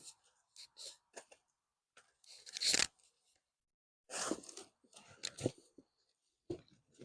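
Hands digging through soil and handling freshly dug sweet potatoes: irregular crunching and rustling in short bursts, the loudest about two and a half seconds in.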